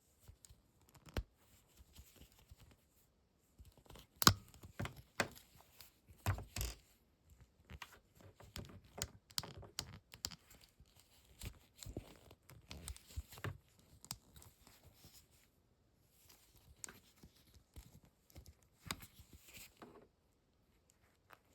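Action-figure packaging being opened by hand: irregular tearing, scratching and crinkling of cardboard and plastic, with sharp clicks and knocks. The loudest knocks come about four to seven seconds in.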